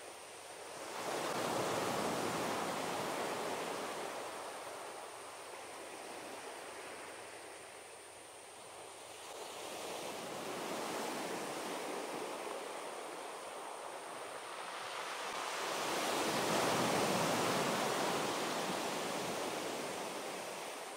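Sea waves washing onto a beach: a steady rushing hiss that swells three times, about a second in, around ten seconds in and again near sixteen seconds, each surge slowly ebbing away.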